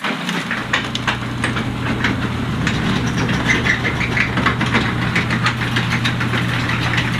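A vehicle's engine running steadily with a low hum, with a stream of small irregular ticks and clatter over it.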